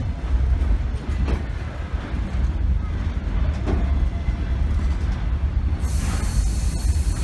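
Russian passenger train carriage in motion: a steady low rumble of the wheels on the rails with a few knocks of the wheels over rail joints. A hiss joins in near the end.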